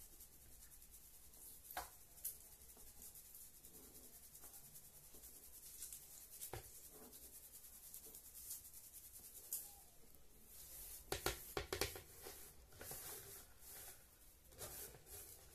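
Blended dried shrimp and ant-egg powder being sifted through a metal mesh sieve by hand: faint scratchy rubbing and rustling of the powder on the mesh, with scattered light taps. A quick run of louder taps comes a little past two-thirds of the way through.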